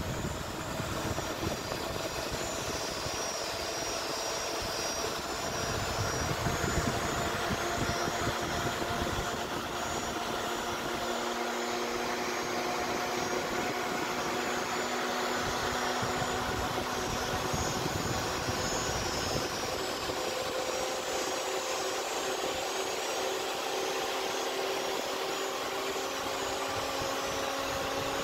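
Cooling fans of a Dell dual-Xeon workstation board running at full speed, a steady whir with several held whining tones. They are at full speed because the temperature sensor is removed.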